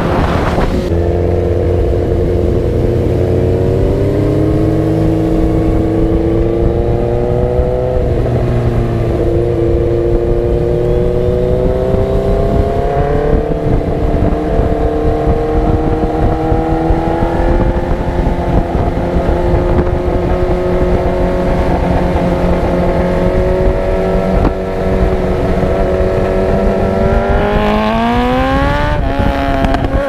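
Motorcycle engine running under way at a fairly steady speed, its pitch slowly drifting. Near the end it revs up sharply, with a brief dip in the middle of the climb.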